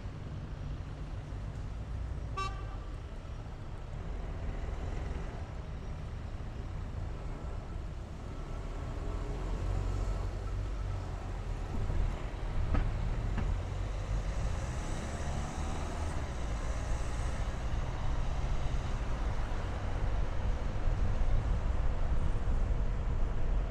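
A car driving through city traffic: a steady low road and engine rumble that grows louder in the second half as it picks up speed. About two seconds in, a car horn gives a short toot.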